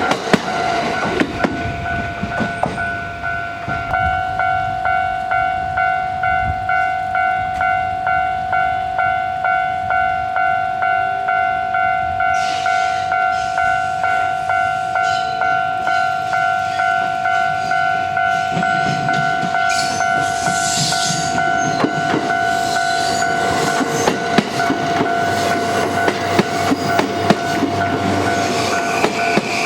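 Japanese level-crossing warning bell ringing in steady, evenly repeated strokes, louder from about four seconds in. An E235-1000 series Yokosuka Line electric train passes through the crossing, its wheels clattering over the rail joints in bursts that grow toward the end.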